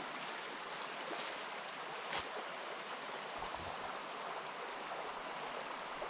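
Steady rush of flowing water, with a few faint ticks and one sharper snap about two seconds in.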